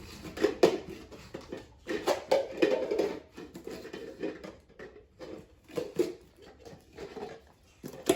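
Plastic party cups being grabbed and set down quickly in a cup-stacking race, giving irregular light clacks and taps in a small room.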